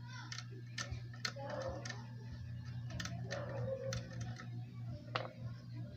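Scattered sharp clicks and taps from hands and tools handling an amplifier circuit board, about six in all, the loudest about five seconds in, over a steady low hum.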